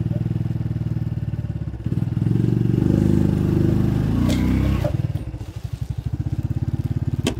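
Honda Wave step-through motorcycle's single-cylinder four-stroke engine pulling up a steep, slippery mud track. It revs harder from about two seconds in and eases off a little before five seconds. A sharp click comes near the end.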